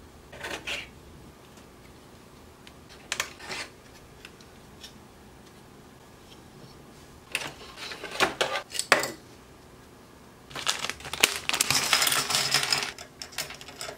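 Hard plastic Kato N scale platform pieces handled and set down with short clicks and clatters, then a plastic bag crinkling as loose plastic parts on sprues are tipped out of it onto a desk, the longest and loudest sound, near the end.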